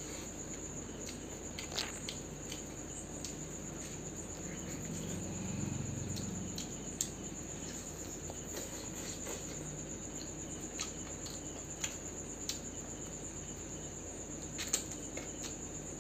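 Crickets chirping in a steady high-pitched chorus, with a few soft clicks scattered through and a brief low rumble around the middle.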